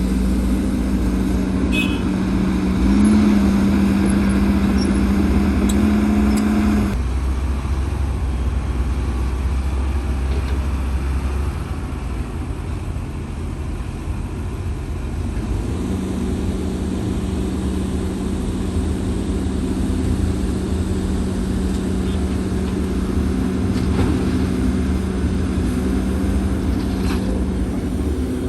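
Diesel engines of heavy earthmoving machinery running steadily, an excavator and dump trucks at work. The engine note steps up about three seconds in, drops away about seven seconds in, and a steady note comes back about sixteen seconds in.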